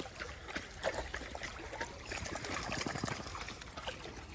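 Water trickling in a shallow stream, with many small irregular clicks and splashes.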